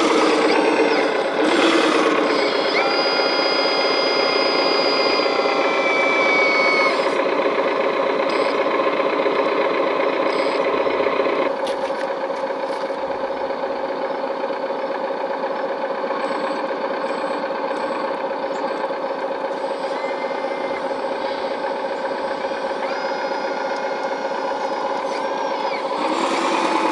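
A 1/14-scale hydraulic RC construction machine working: steady whining of its electric drive and hydraulic pump, with the pitch shifting as the controls change. The sound steps down a little about eleven seconds in.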